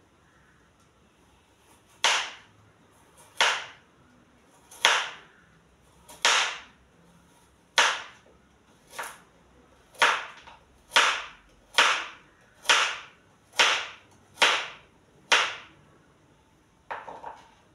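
Kitchen knife chopping vegetables on a plastic cutting board: about a dozen single chops, each a sharp knock of the blade onto the board, slowly picking up pace from one every second and a half to about one a second, then a quick little flurry of cuts near the end.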